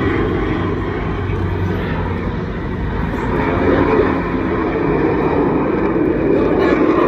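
Fixed-wing aircraft flying past, a loud steady engine rumble that swells about four seconds in and again near the end.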